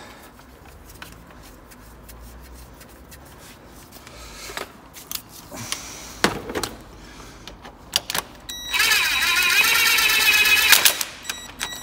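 A cordless power tool on a long extension bar runs the crankshaft pulley bolt in for about two seconds near the end, a loud steady motor whine. Before it, scattered light clicks and knocks of metal tools and parts being handled.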